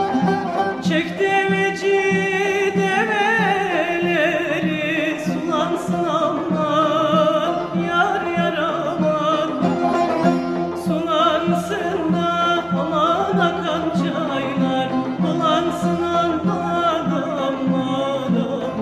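Turkish folk music (a Konya türkü) from an archive recording: a continuous, ornamented melody with wavering, sliding notes over a steady accompaniment of string instruments.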